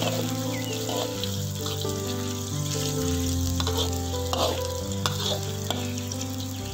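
Sliced shallots and garlic sizzling in hot oil in a metal wok, with a metal spatula scraping and tapping the pan now and then as they are stirred. Background music with long held notes plays underneath.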